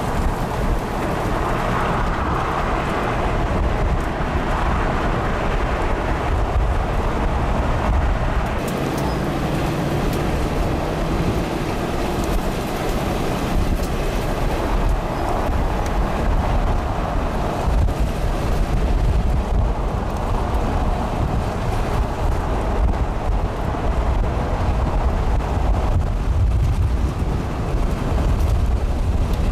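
Strong wind blowing across the microphone: a steady low rush of noise that swells and eases in gusts.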